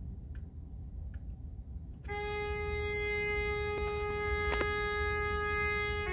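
A few faint clicks, then about two seconds in a trumpet part played back by music notation software starts one steady held note and sustains it for about four seconds.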